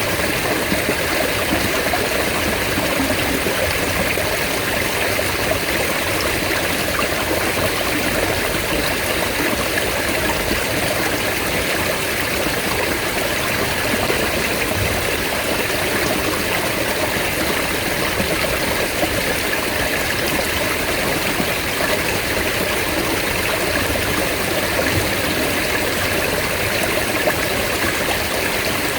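Mountain stream water running steadily, an even rush with no breaks.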